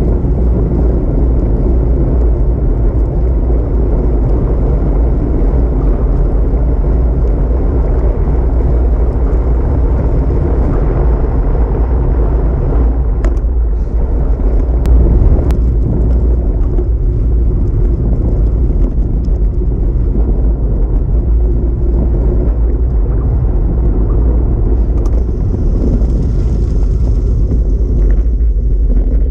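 Steady low rumble of wind buffeting the microphone on a fast bicycle ride, with road and tyre noise underneath. A few sharp clicks come about halfway through.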